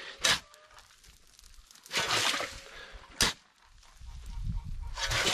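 Shovelfuls of sand being loaded into a concrete mixer: a gritty scrape of the shovel into the sand pile, then a sharp knock, repeating about every three seconds.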